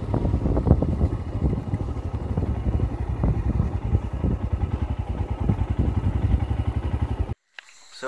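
Motorcycle riding along at night, its engine running with wind noise on the microphone. The sound cuts off suddenly about seven seconds in.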